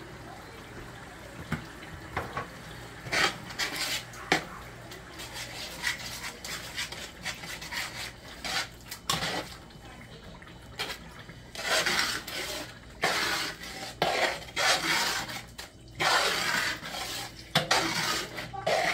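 Metal spoon stirring and scraping around a large aluminium pot of onions, tomato and seasoning in oil. Irregular scraping strokes come thicker and louder in the second half.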